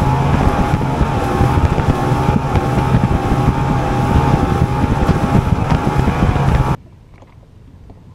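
Bass boat running at speed on open water: the steady drone of its outboard motor with a high, slightly wavering whine, over rushing wind and water. It cuts off abruptly near the end to quiet lake ambience.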